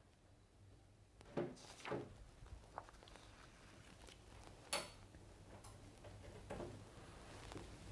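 Faint scattered clicks and light knocks of a T20 Torx tool and small M4 bolts being handled while the housing bolts of a Bristle Blaster drive unit are undone, the sharpest click nearly five seconds in.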